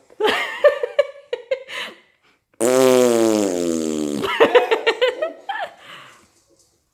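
A drawn-out fart sound, about a second and a half long and falling in pitch, comes about two and a half seconds in. A baby laughs in short bursts before it and breaks into a quick run of giggles right after it.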